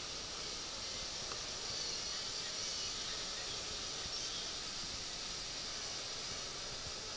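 Steady high-pitched hiss of an outdoor summer garden, with faint wavering high tones about two and four seconds in.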